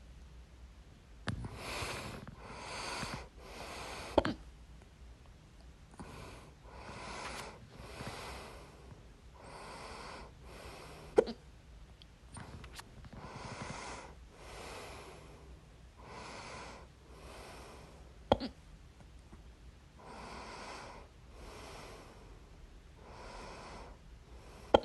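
A person's loud hiccups, a sharp jolt roughly every seven seconds, with breathing in and out heard between them.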